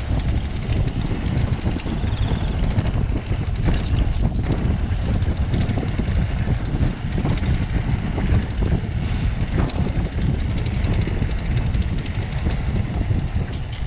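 Mountain bike being ridden along a dirt trail: a steady low wind rumble on the microphone with frequent small rattles and knocks from the bike over rough ground.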